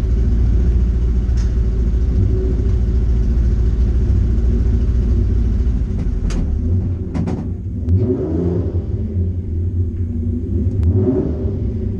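Datsun Fairlady 2000 (SR311) four-cylinder engine running at idle with a steady low rumble. It is given two short blips of the throttle, about eight and eleven seconds in. A few sharp clicks sound along the way.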